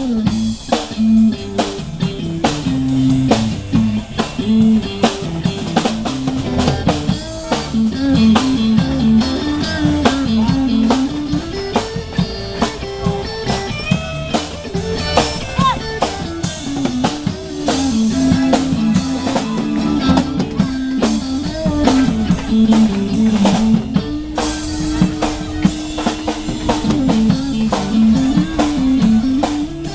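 Live band playing an instrumental stretch without vocals: a drum kit keeping a steady beat under electric guitar and a moving bass line, with one note held for about two seconds near the end.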